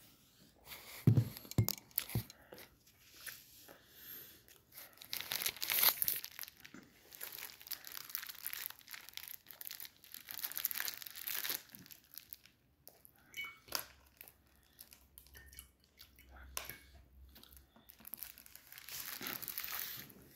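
Aluminium foil crinkling and crackling in bursts as it is crumpled and unwrapped by hand, with a few sharp thumps about a second in.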